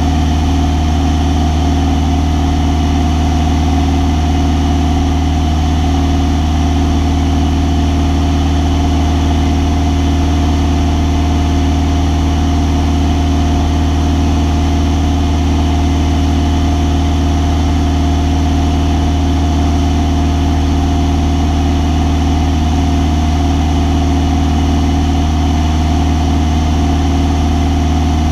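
Piston engine and propeller of a single-engine light airplane running steadily in cruise flight, a constant low drone heard from inside the cockpit.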